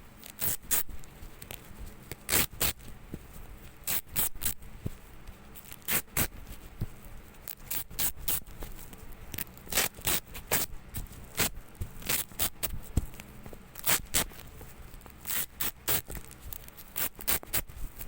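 Velcro hook-and-loop tape being pulled apart again and again in short ripping strokes at an uneven pace, about one a second, some coming in quick pairs or clusters.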